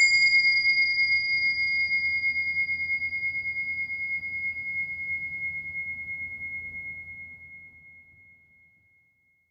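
Small brass singing bowl ringing after a single strike: one high, clear tone with a fainter higher overtone, wavering gently as it slowly fades away over about nine seconds.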